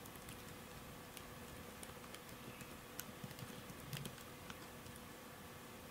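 Faint typing on a MacBook laptop keyboard: soft, irregular key clicks over a low steady hum.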